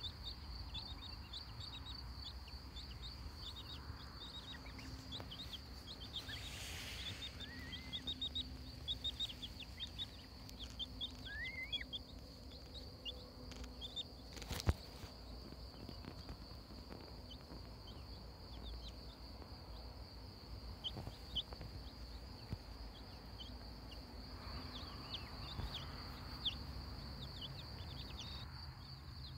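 Napping goslings and chicks giving faint, scattered peeps: many short falling chirps, with now and then a longer rising call. A single sharp click comes about halfway through.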